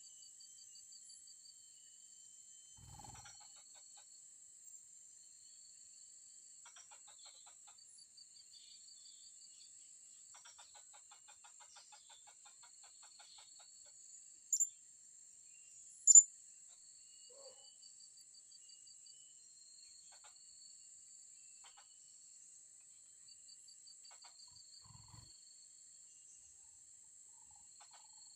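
Steady high insect drone with repeated pulsing cricket trills. Midway, two short, sharp high-pitched calls a second and a half apart, the calls of a blue-crowned hanging parrot (serindit).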